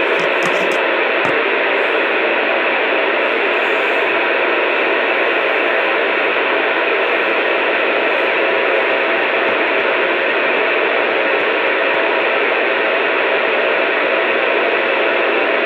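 Steady hiss of static from a two-way radio's speaker, even and unbroken, with a faint hum beneath it.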